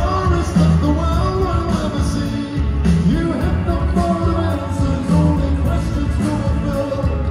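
Rock band playing live, with a sung vocal line over electric guitars, heavy bass and drums.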